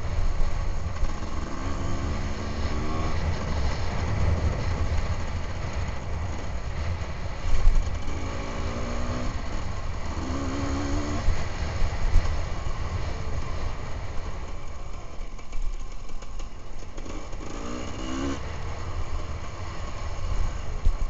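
Enduro motorcycle engine running as the bike is ridden along a rough dirt trail, with a heavy low rumble and a few short rises in revs. There are a couple of sharp jolts, the loudest about a third of the way in.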